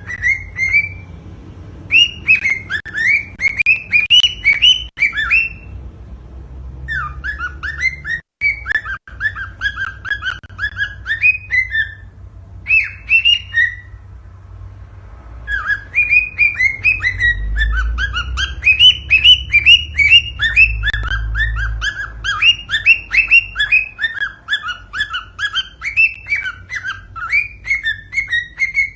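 Cockatiel singing: fast runs of short, repeated whistled chirps, pausing briefly twice, over a faint low rumble. This is the song used to stimulate cockatiels to breed.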